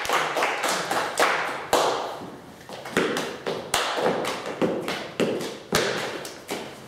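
Body percussion: dress shoes stomping and tapping on a hard floor in sharp, irregular hits, roughly two a second, each with a short echo.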